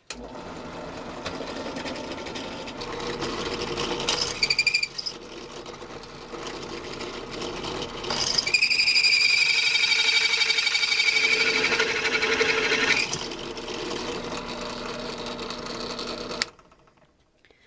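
Bench drill press running, its bit drilling into the metal lock cylinder of a 1960s Duncan Duplex parking meter. The bit gives a short high squeal about four seconds in, then screeches loudly for several seconds in the middle as it bites into the hard lock. The drill stops near the end.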